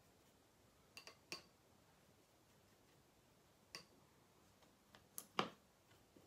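A few light clicks and taps of a watercolour brush knocking against a glass water jar and a pan paint palette as it is rinsed and loaded with paint. The loudest click comes about five seconds in.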